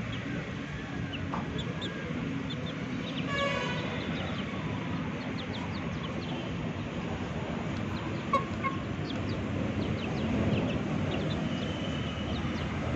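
Chickens, chicks among them, peeping and clucking as they peck at scattered feed, with short high calls here and there. There is a single sharp tap a little past the middle, over a steady low rumble.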